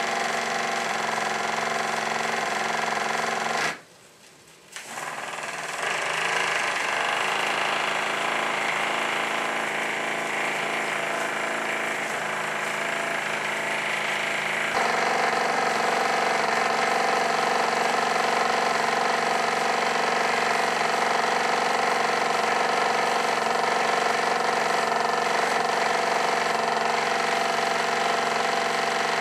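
Cheddar Puffin Mk1 model steam plant running steadily under live steam: the small steam engine makes a fast, even mechanical rattle together with the boiler's gas burner. The sound drops out briefly about four seconds in.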